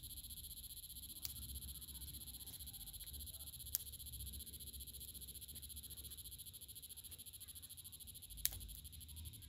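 Steady, fast-pulsing chorus of calling animals, high-pitched and unbroken, with a low rumble underneath. Three sharp snaps of dry twigs cut through it: about a second in, near the middle, and a louder one near the end.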